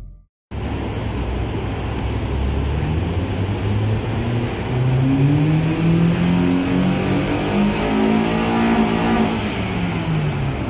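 Honda CR-V 2.0-litre four-cylinder engine running on a hub dyno: it revs up steadily over about five seconds under load, then the revs fall back.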